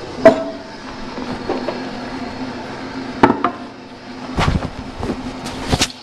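A few sharp knocks and clunks of handling, the heaviest a low thud about four and a half seconds in, over a steady low hum.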